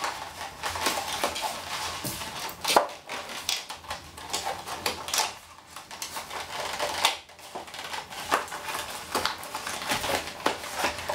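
Hands tearing open a cardboard action-figure box and working at its plastic packaging: irregular crinkling and scraping with many sharp clicks and snaps, the loudest a little under three seconds in.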